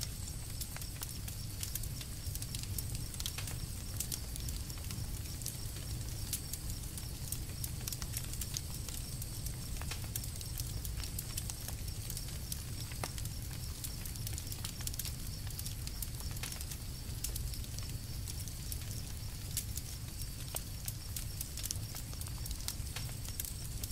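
Campfire burning and crackling: frequent irregular sharp snaps and pops over a steady low rumble.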